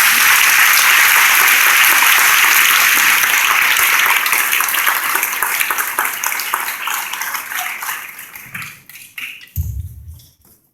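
Audience applauding: a dense, even round of clapping that thins to scattered separate claps in the second half and dies away near the end. A short low thump comes just before it stops.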